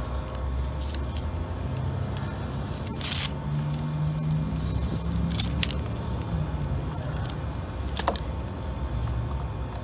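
Handling noise from fitting a portable pressure washer's hose lead: scattered plastic clicks and knocks, with a brief loud scrape about three seconds in, over a steady low background rumble. The pump is not yet running.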